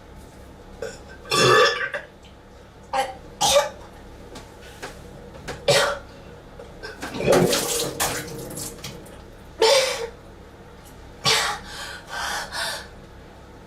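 A person burping repeatedly, with gagging throat noises, as if on the verge of vomiting. There are about eight short separate bursts, with a longer drawn-out one around the middle.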